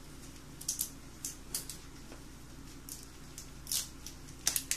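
Faint scattered clicks and light rustling as kitchen items are handled out of view, about eight short ticks, over a steady low hum.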